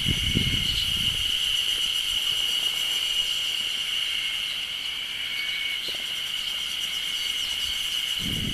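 Insects trilling in a steady, unbroken high-pitched chorus.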